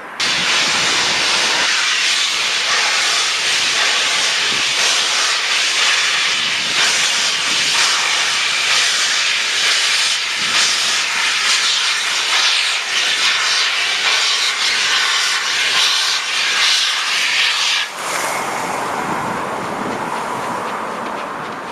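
Peppercorn A1 Pacific steam locomotive 60163 Tornado letting off steam: a loud, steady hiss that starts abruptly and cuts back sharply about eighteen seconds in, leaving a quieter hiss.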